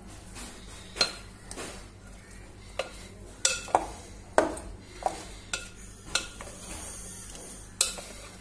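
Wooden spoon stirring a wet mix of dried fruit and orange peel in a glass bowl, knocking against the glass about ten times at irregular intervals.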